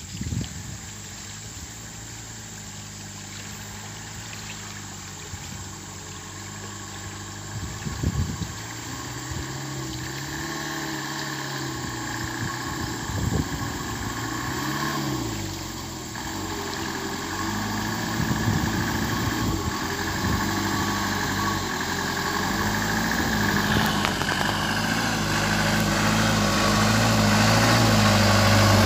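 Engine of a truck loaded with sugarcane working at low speed along a muddy, rutted track, its pitch rising and falling with the throttle and growing steadily louder as it approaches. A few knocks are heard, one about eight seconds in.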